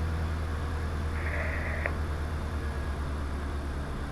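Diamond DA20's piston engine droning steadily in cruise, heard in the cockpit. A short higher hiss cuts in about a second in and stops abruptly after about half a second.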